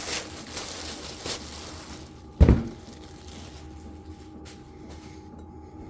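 Rustling and handling noises as the unboxed drill bit sharpener and its packaging are moved about, then one heavy thump about two and a half seconds in as something is set down. A faint steady hum runs underneath.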